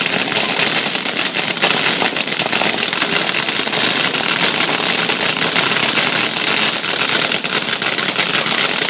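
FN108 Fire Boxes ground fountain fireworks, several burning at once: a loud, steady hissing spray of sparks thick with fast crackling pops.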